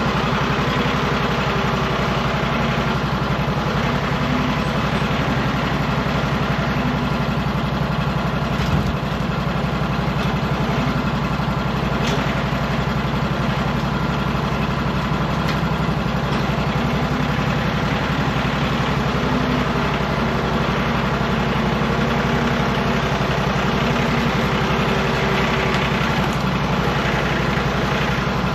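Band sawmill's engine running steadily under load with an even hum, with one small knock about nine seconds in.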